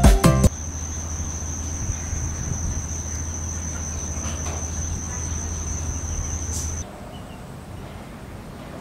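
A steady high-pitched insect trill with a low hum beneath it, both cutting off suddenly about seven seconds in and leaving a quieter outdoor background. Background music ends in the first half second.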